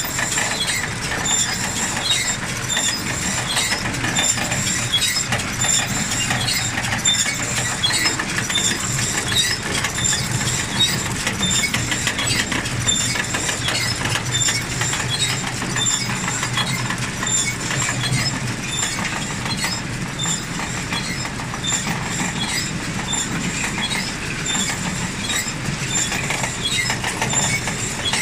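Claas Rollant 255 RotoCut round baler running empty on a test spin: its rollers and drive chains turn with a steady hum and a fast, continuous rattle of small ticks.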